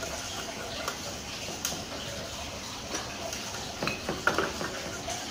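A brush scrubbing over the stainless-steel body and chute of an espresso grinder while it is switched off: a light scratchy rustle with scattered small clicks and taps.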